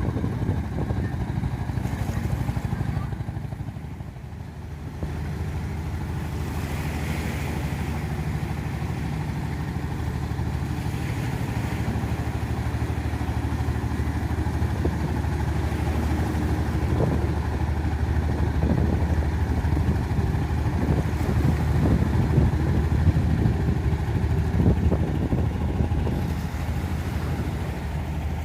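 Fishing boat motor running steadily, drawing closer and louder through the middle and later part and then easing off near the end, with wind and surf beneath it.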